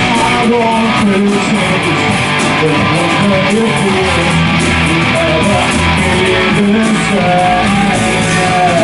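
A band playing an instrumental passage of a song: a melodic guitar line winds over strummed guitar, bass and drums.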